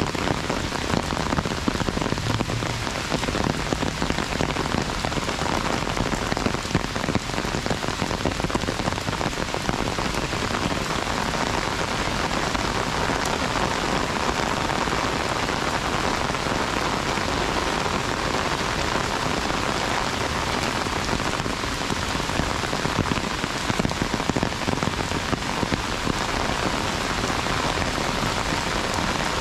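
Heavy rain falling on an umbrella held overhead, a dense, steady hiss of countless drops.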